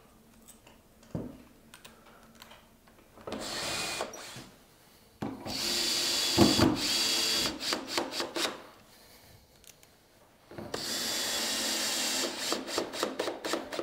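A cordless drill-driver driving hinge screws into a wooden door frame, running in three bursts with pauses between. The last burst breaks into rapid pulses near the end.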